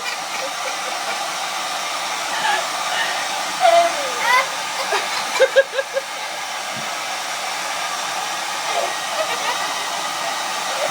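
Hand-held hair dryer blowing steadily, a constant even hiss. A few short pitched sounds break over it near the middle, including a quick run of evenly spaced pulses.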